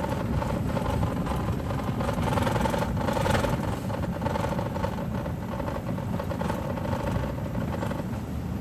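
Steady engine and road noise of a moving car, a continuous rumble with a faint hum.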